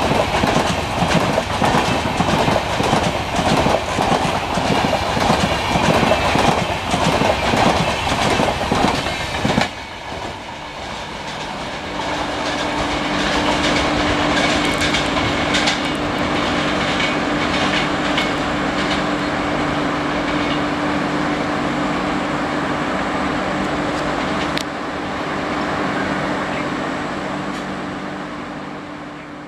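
LHB passenger coaches passing close at speed: a loud, rapid clickety-clack of wheels over the rail, which stops abruptly about ten seconds in. After that comes a steady low diesel engine hum, fading near the end.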